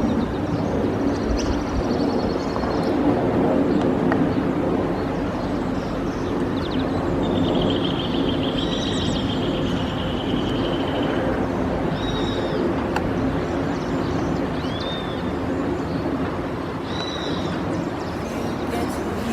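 Birds chirping over a steady low outdoor rumble: a longer high trill about eight seconds in, then short arched chirps every second or two.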